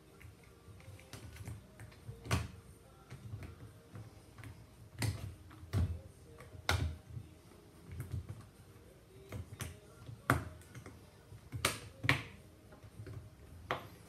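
Rubber door boot of a Miele washing machine being pressed by hand onto the rim of the sheet-metal front panel: irregular sharp snaps and clicks as the seal lip seats, with soft knocks of hands against the panel.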